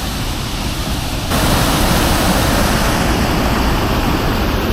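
Steady rushing of a waterfall close by, becoming louder and brighter suddenly about a second in.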